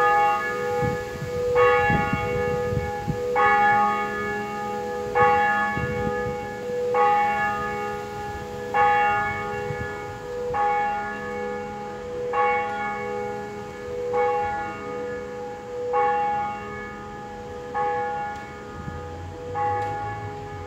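Peal of swinging Grassmayr church bells, tuned B♭, E♭, G♭ and A♭, ringing together: a steady, overlapping ring with a fresh clapper strike about every two seconds.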